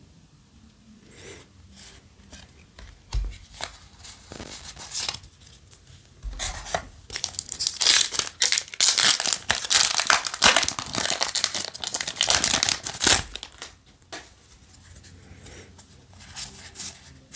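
A foil Yu-Gi-Oh! booster pack wrapper being torn open by hand, crinkling and ripping, loudest from about six to thirteen seconds in. Light rustling of handled cards follows near the end.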